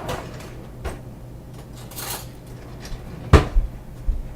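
Kitchen clatter of dishes and cookware being handled: scattered clinks and knocks, a short scrape about two seconds in, and one loud knock a little past three seconds.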